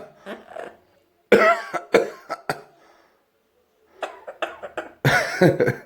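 Amazon parrot imitating a human cough: a run of short, raspy coughs, a pause of about a second, then another bout.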